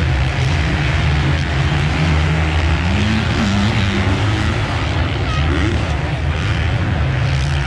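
Engines running: a steady low drone whose pitch wavers briefly about three seconds in.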